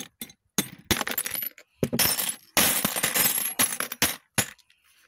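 Window-glass shards being crushed with a pounder in a bucket: a quick run of crunching, clinking strokes of breaking glass that stops a little before the end.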